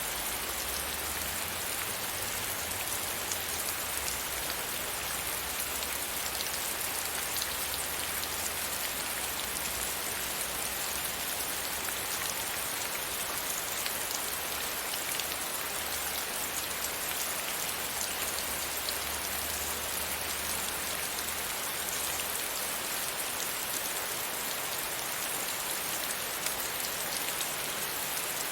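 Steady rain hitting a window pane, an even, unbroken spatter of drops. A faint low rumble runs underneath and fades out about three quarters of the way through.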